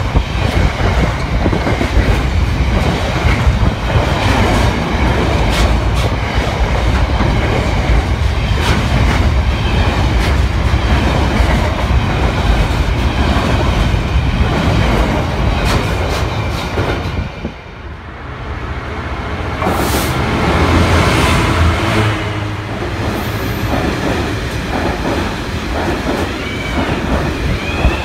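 Loaded freight wagons rolling past close at speed, a continuous rumble with wheels clattering over the rail joints. About two-thirds of the way through it dips away briefly, then another freight train's wagons build back up and clatter past.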